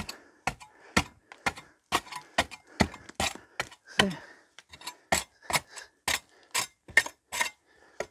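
Long-handled chopping spade striking a brick-filled timber-frame wall panel, hacking off thick, loose old mortar. The blows come in a quick, fairly even series of sharp knocks, about three a second.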